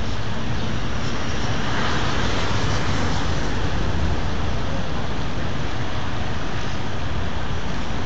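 Steady road traffic noise, a continuous rumble of passing vehicles that swells briefly about two seconds in.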